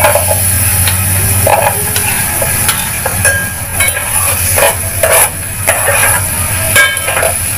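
Chopped onions sizzling in hot oil in a cooking pot, with a metal spoon scraping and clinking against the plate and the pot as they are tipped in and stirred.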